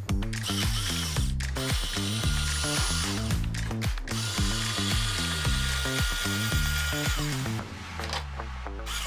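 Small geared electric motors of a 3D-printed RC dump truck whirring with gear rattle and a steady whine, in two runs that stop about a second and a half before the end, over background music.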